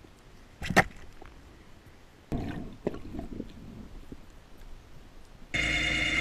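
Muffled underwater sounds: a single sharp, loud crack about a second in, typical of a speargun shot striking, then scraping noise and knocks. Near the end a loud steady buzzing tone made of several pitches starts suddenly.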